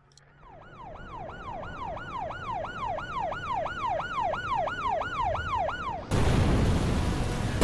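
Alarm siren sound effect wailing down and up in pitch about two and a half times a second, growing louder. About six seconds in it gives way to a loud rush of noise.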